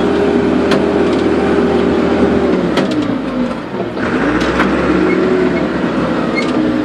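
Backhoe loader engine running with a steady whine that drops off about two and a half seconds in, climbs back about four seconds in and dips again near the end as the throttle changes. A few sharp clanks sound over it.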